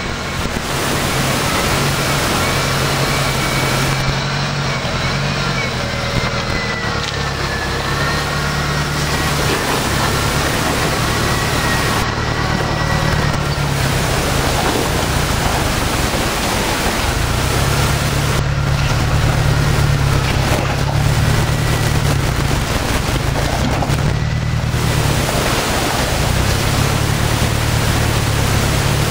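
Lifted 1993 Jeep Wrangler YJ's engine running at low speed as it crawls over logs and rocks on a steep dirt hill climb, with a river's steady rush underneath.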